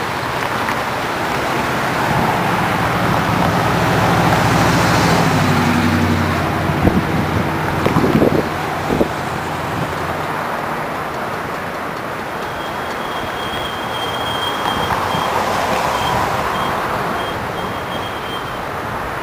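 Road traffic passing on a town bridge over a steady rushing background. A heavy vehicle's engine rumble builds and passes during the first half, with a few sharp knocks about halfway through.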